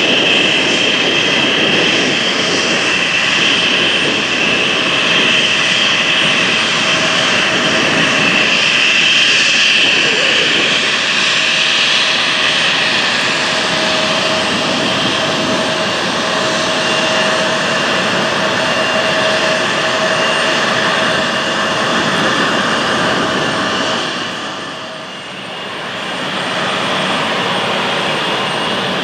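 Embraer E190's twin turbofan engines running at taxi power as the jet rolls slowly past: a steady jet whine with a high, even tone. Near the end the sound briefly drops away, then comes back.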